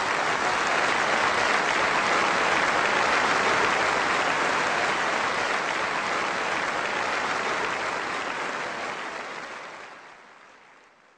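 Audience applauding steadily after a stage comedy punchline, fading out near the end.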